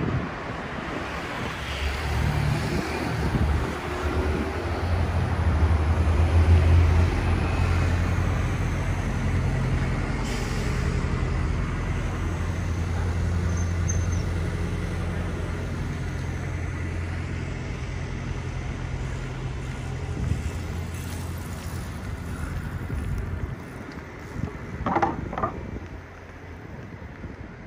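Road traffic dominated by a heavy diesel vehicle's engine running close by, a steady low hum that swells about six seconds in, then eases off and fades after about twenty-three seconds. Two short high squeaks follow near the end.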